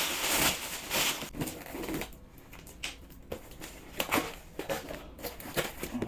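Plastic carrier bag rustling as a cardboard box is pulled out of it, loudest in the first second or so, then the cardboard box being handled on a table with scattered crinkles and knocks.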